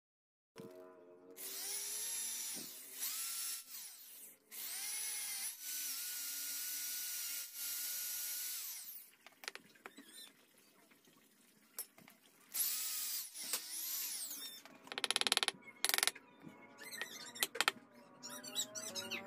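Small power drill boring into a wooden knife handle, run in several short spells. Each spell rises in pitch as the drill spins up and falls as it winds down. A few sharp clicks come near the end.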